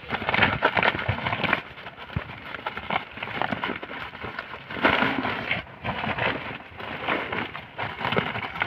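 Woven polypropylene sack full of sand rustling and crinkling in irregular bursts as hands twist and fold its neck closed.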